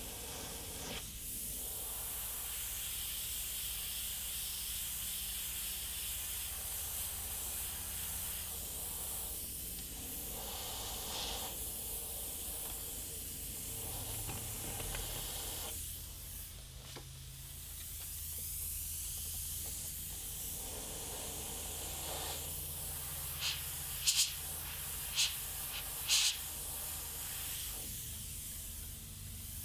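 Gravity-feed airbrush spraying paint, a steady airy hiss that swells and eases as the trigger is worked. Four or five short, sharper spurts of air come near the end.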